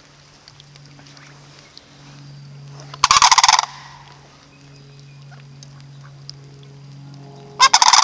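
Sandhill cranes giving loud, rolling, rattling calls in two bursts: one about three seconds in and another near the end. A faint steady low hum runs beneath.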